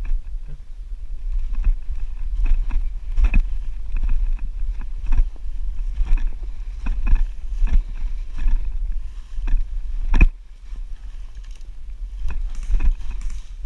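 Steady low rumble of wind and handling noise on a rifle-mounted action camera, with irregular knocks and rustles as the rifle is carried and moved. One sharp knock about ten seconds in is the loudest.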